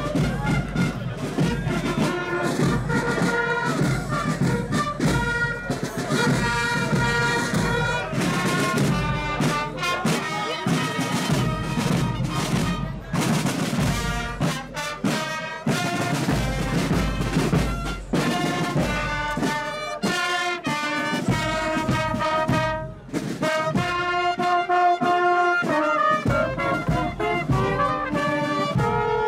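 Military marching band playing a march: trumpets and other brass carry the tune over bass drums beating time.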